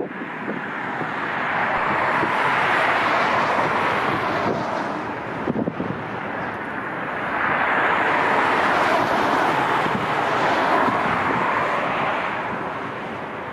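Jet airliner engine noise, a loud rushing roar that swells, eases off about five seconds in, then swells again, with wind buffeting the microphone.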